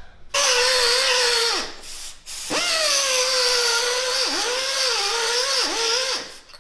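Air-powered die grinder running in two bursts, a steady whine over a hiss of exhaust air. Its pitch dips as the bit bites into the cast bicycle lug, and it winds down at the end of each burst. It is grinding out the lug to get a slip fit on the tube.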